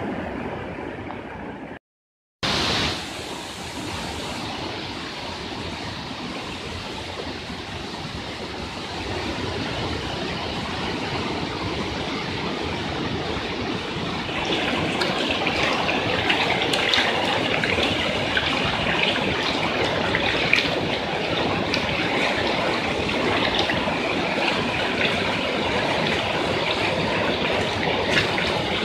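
Muddy floodwater rushing down a street in a torrent: a steady rushing noise that drops out briefly about two seconds in and grows louder about halfway through.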